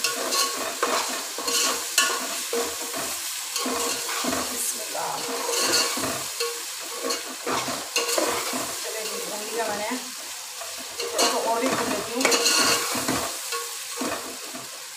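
Chicken and spices sizzling as they fry in oil in a metal pot, while a long metal spoon stirs and scrapes them round the pot, with occasional clinks of spoon on metal. This is the bhuna stage, frying the masala and chicken to drive off the chicken's raw smell.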